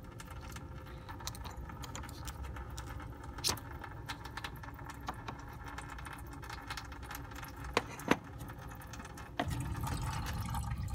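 A few sharp clicks as the radiator cap is handled and twisted off. About nine seconds in, a louder steady low noise begins: coolant draining from the radiator into a drain pan.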